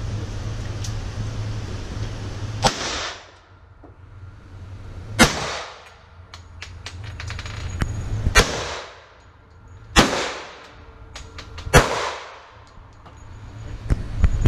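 Five handgun shots fired one at a time, about one and a half to three seconds apart, each a sharp crack with a reverberating tail off the range's hard walls.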